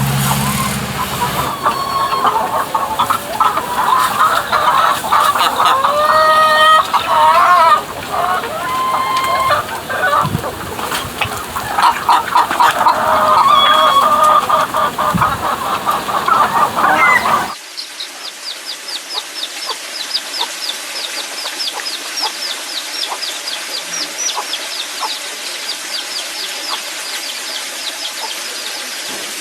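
Chickens clucking and calling loudly in varied, bending tones. About 17 seconds in the clip changes to a quieter recording with a fast run of short, high-pitched calls, several a second, that fades out.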